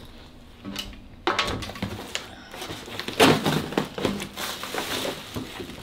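Shipping packaging being handled and torn open: the paper and plastic of a mailer envelope rustling and crackling, with sharp rips and knocks starting about a second in.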